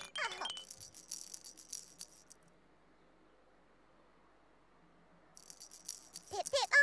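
Light, shaker-like rattling in two bursts of about two seconds each, with a near-quiet gap between them. A short, pitched voice-like cry comes in near the end.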